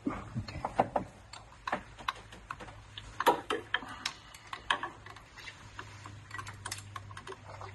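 Irregular metallic clicks and taps of a wrench on an 11 mm brake-line fitting as it is worked loose from an ABS module.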